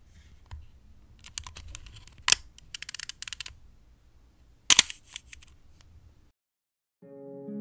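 Leica M3 rangefinder film camera being worked: two sharp shutter clicks about two and a half seconds apart, each with a quick run of small ratcheting clicks from the film advance, over a faint low hum.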